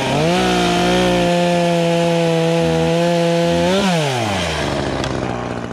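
Echo CS-3510 two-stroke gas chainsaw cutting through a log at full throttle with a high, steady engine note, then the throttle is released about four seconds in and the revs fall to idle.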